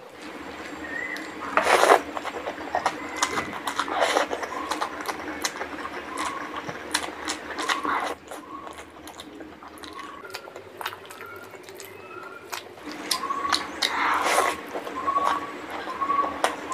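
Wet squishing and clicking of a bare hand mixing rice with curry gravy, then close-up mouth sounds of chewing and smacking a big handful of rice, with a few louder squelches.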